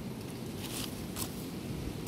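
Two faint brief rustles of dry leaves, about a second in, over a steady low rumble.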